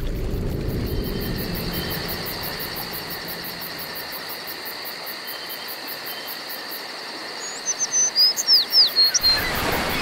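Countryside ambience: insects calling steadily in a fast, even pulse, with birds chirping. Near the end a bird gives a quick run of short calls, several of them falling sharply in pitch.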